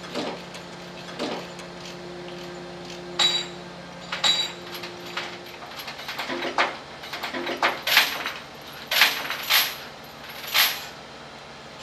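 A series of sharp metallic clanks and clinks, some with a brief ringing tone, coming closer together and louder in the second half. Under them runs a steady low machine hum that stops about halfway through.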